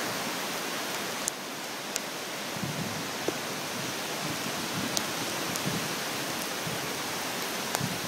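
Heavy rain pouring down in a storm: a dense, even hiss, with a few sharp ticks of single drops scattered through it.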